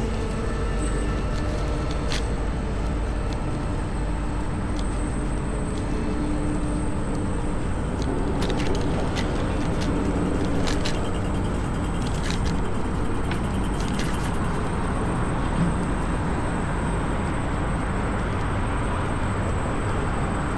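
Steady road and wind noise of a moving electric scooter, picked up by a camera strapped to the rider's chest, with a run of sharp clicks and rattles in the middle.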